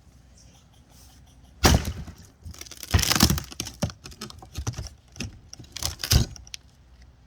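A sign being broken apart: a loud crack about a second and a half in, a burst of cracking and knocking around three seconds, scattered smaller knocks, then another sharp crack near the end.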